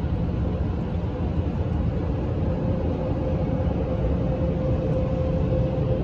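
Automatic car wash machine running, heard from inside the car's cabin: a steady low mechanical rumble with a steady hum as the wash gantry travels off the car.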